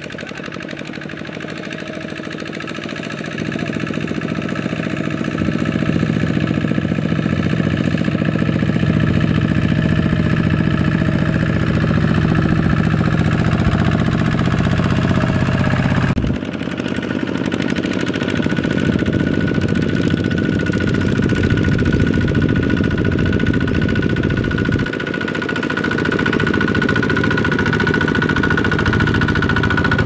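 Single-cylinder diesel engines of two-wheel walking tractors running under load, a steady rapid knocking chug as they pull loaded carts. It grows louder over the first several seconds and changes abruptly about halfway through.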